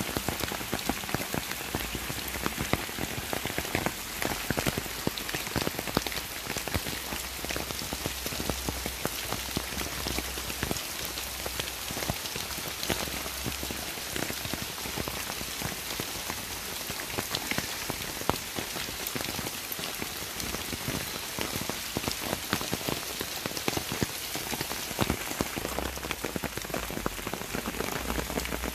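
Steady rain falling on leaves, grass and ground, with many separate drop hits ticking close to the microphone.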